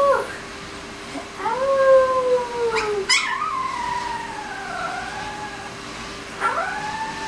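Very young Alaskan Malamute–Siberian Husky mix puppy howling: a few thin howls, one falling slightly in pitch, then a longer wavering one that sinks and rises again, with another starting near the end.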